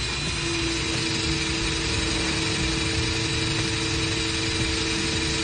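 Handheld electric drill boring into a flat steel bar, its motor running at a steady speed with a constant whine.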